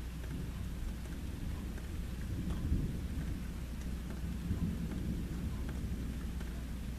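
Thunder rumbling low, swelling a couple of seconds in and easing off again, over light rain with scattered drop taps.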